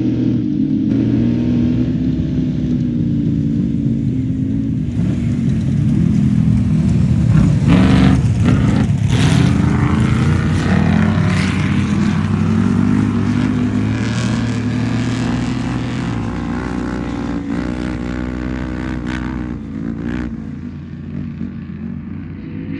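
Off-road race vehicle's engine running hard as it comes through, its pitch rising and falling with the throttle, loudest about eight seconds in and then slowly fading.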